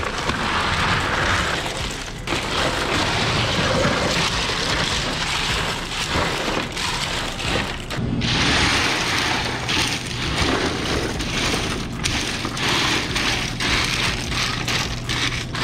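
Ice cubes poured from a plastic bucket into a steel cooler bin of canned beer and spread by hand, a continuous clatter and rattle of ice against the cans and the metal, louder again about eight seconds in.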